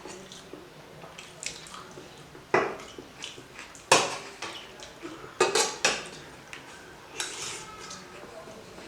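Cutlery clinking and scraping on plates during eating, with a few sharp clinks standing out about two and a half, four, five and a half and six seconds in.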